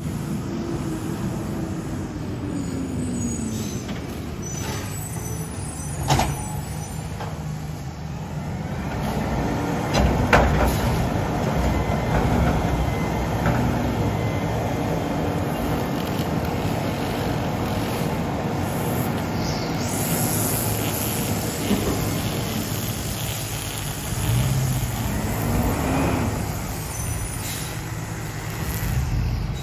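Front-loader garbage truck's diesel engine running, its pitch falling early on and rising and falling again near the end as it revs. Two sharp knocks and a hiss of air brakes can be heard over it.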